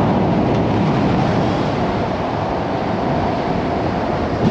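Nissan Y62 Patrol driving on the road, a steady loud rumble of tyre, road and engine noise heard from inside the car.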